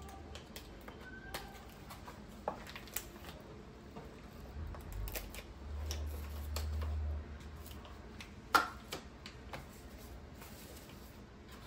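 Hands unpacking doll accessories from a cardboard box insert: scattered light rustles and clicks of plastic wrap and cardboard, with a low rumble midway and one sharper click about eight and a half seconds in.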